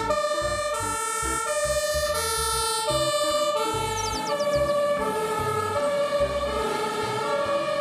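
Two-tone siren of a German fire-service turntable ladder truck on an emergency run, switching steadily back and forth between a higher and a lower note.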